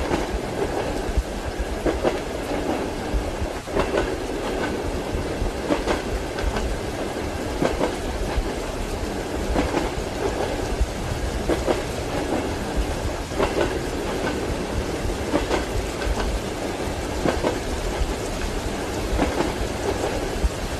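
Train wheels clacking over rail joints, heard from inside a passenger carriage: a steady rumble with a clack about every two seconds.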